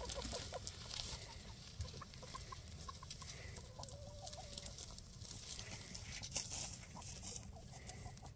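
Chickens crowded in a wire crate clucking quietly, a scatter of short clucks with one longer drawn-out note about four seconds in.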